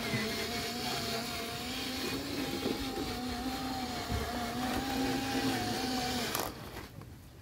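Electric drive motor and gearbox of a scale RC cargo truck whining steadily as it drives with a load, with a slight waver in pitch, then cutting out near the end.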